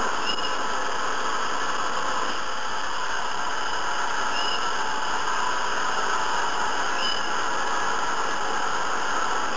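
Hair dryer running steadily: an even rushing of fan and air that does not change, with a faint short chirp every few seconds.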